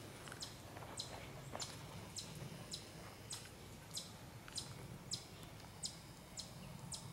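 Chipmunk giving its sharp, high chip call over and over at an even pace, a little under two a second, faint: the alarm chipping of a chipmunk under threat.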